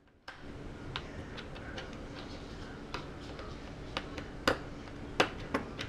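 Small screwdriver working the screws at the bottom of a laptop LCD screen: a series of irregular light clicks and ticks, metal on metal and plastic, with the sharpest few in the second half.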